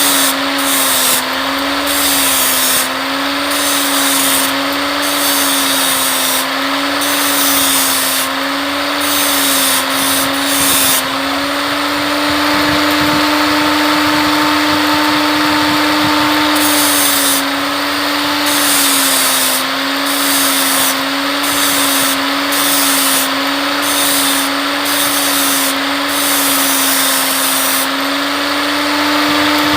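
Small handheld electric power tool, such as a mini rotary tool or drill, running steadily for the whole stretch. Its motor pitch keeps dipping and recovering as it bears on the work, with a hiss that comes and goes about once a second.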